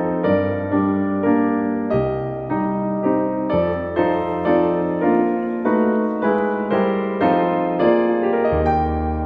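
Background piano music: a steady run of struck notes, each fading, over bass notes that change every second or two.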